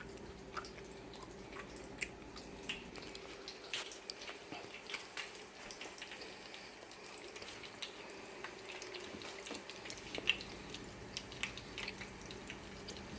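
Frying pans of fat preheating on the stove, giving faint, irregular crackles and pops over a low steady hum: the fat is getting hot, nearly ready for frying.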